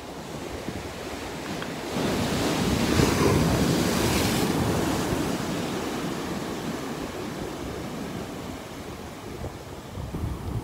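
Small ocean surf breaking and washing up onto the sand, swelling about two seconds in, then slowly fading as the wash spreads and draws back. Wind rumbles on the microphone, most noticeably near the end.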